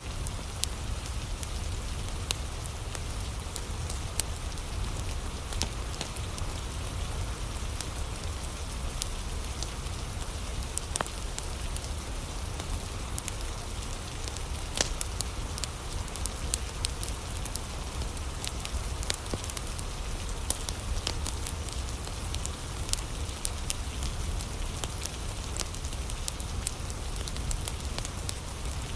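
Wood fire crackling in a fireplace, with sharp irregular pops over a steady hiss of rain and a low rumble underneath.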